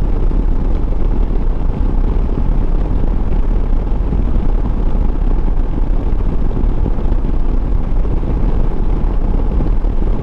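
Riding noise from a Harley-Davidson Road Glide CVO ST motorcycle under way: a steady low rumble with wind rush over it, unchanging throughout.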